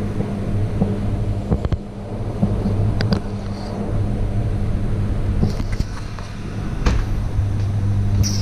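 Steady low electrical machine hum, with a few sharp clicks and knocks as a glass-door drinks cooler is opened and a can is taken from its shelf.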